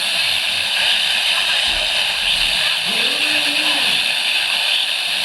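Weather radio reception buried in heavy static: a steady loud hiss, with a faint voice barely coming through underneath.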